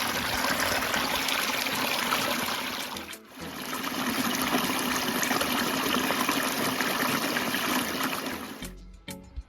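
Stream water running steadily, with a brief drop in level about three seconds in. Music with plucked notes takes over near the end.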